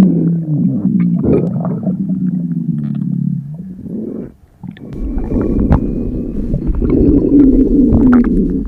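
Hungry stomach grumbling: a long, low, gurgling growl, a short break about four seconds in, then a second, louder rumble with a wavering pitched growl near the end.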